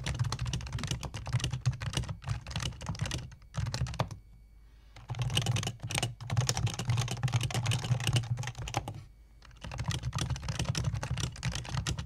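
Fast touch-typing on Topre-switch HHKB keyboards in three bursts: first on an HHKB Type-S with silenced Topre switches, then, after a pause of about a second, on a standard black HHKB whose Topre switches give a deeper thock, then a third burst near the end.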